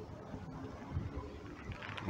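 Light wind rumbling on the microphone, low and even.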